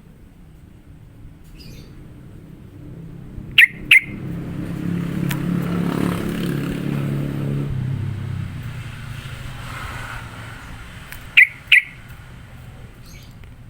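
Yellow-vented bulbul (trucukan) giving a sharp double chirp twice, about 3.5 seconds in and again near the end; the chirps are the loudest sounds. Between them a vehicle engine passes by, rising to a peak in the middle and fading away.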